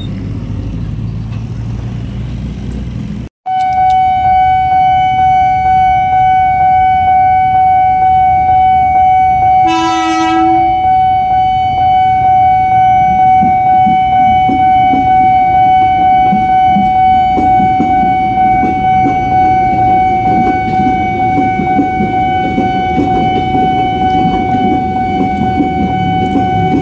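Level-crossing warning alarm sounding a steady pitched ringing tone that pulses in an even beat, starting about three seconds in after rumbling road traffic. About ten seconds in, an approaching KRL commuter electric train gives one horn blast of about a second. The rumble of the train passing the crossing grows toward the end.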